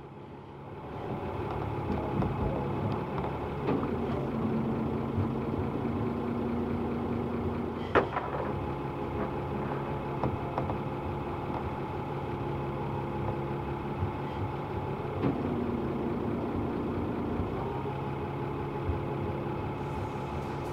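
Boat engine running steadily, with a sharp click about eight seconds in and a second tone that twice drops in and holds for a few seconds.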